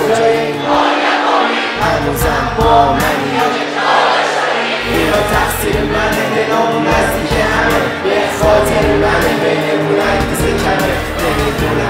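Live Persian hip-hop performance: vocals over a beat, with many crowd voices singing along. The bass drops out briefly several times.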